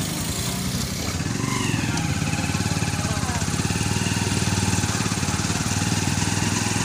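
Small motorcycle-type engine running under way, with a fast low chugging pulse that grows a little louder about two seconds in.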